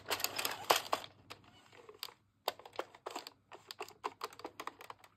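Plastic 22-needle Addi circular knitting machine being cranked back and forth over a few needles, its needles and yarn guide giving a quick, irregular run of small clicks, with a short pause about two seconds in.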